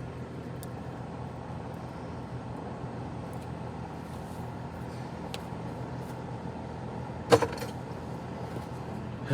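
A steady low hum with one sharp knock about seven seconds in, and a few faint ticks.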